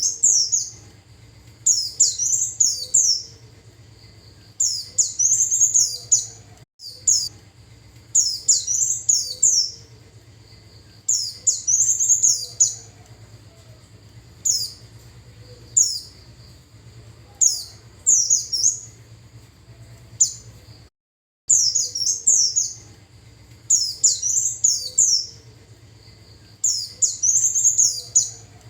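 White-eye (pleci) song: short groups of high, rapid chirping notes, repeated every second or two, with two brief gaps. It is a lure call used to attract wild white-eyes.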